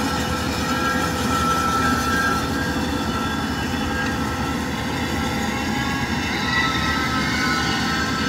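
Kubota rice combine harvesters running steadily, their diesel engines rumbling under a steady high mechanical whine from the cutting and threshing gear, as they labour through soft mud where one of them is bogged down.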